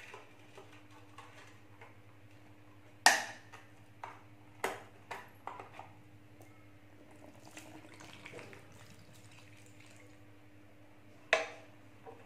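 A few sharp clinks and taps of a metal can and spoon against a glass bowl on a table, the loudest about three seconds in and another near the end, over a steady low hum.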